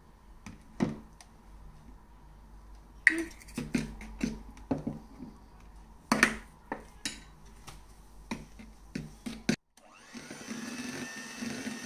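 Electric hand mixer whipping egg whites and sugar in a bowl, its beaters clacking irregularly against the bowl. After a short break near the end, the motor runs more steadily.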